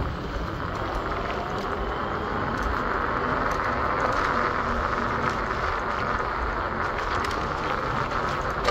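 Steady city ambience: a constant hiss and low rumble with a few faint ticks.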